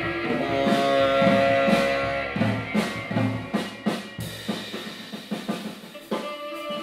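Free-jazz improvisation on drum kit and tenor saxophone. Held saxophone notes come first, then a quick flurry of drum and cymbal hits from about two to four seconds in, then sparser, quieter hits.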